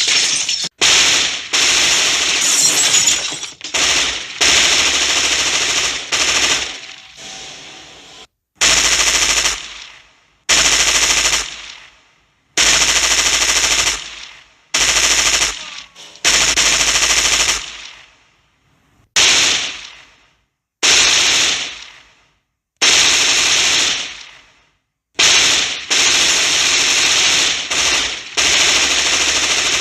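Film sound-effect bursts of automatic gunfire: about fifteen loud bursts of one to two seconds each, separated by short pauses, each starting abruptly and trailing off in a fading echo.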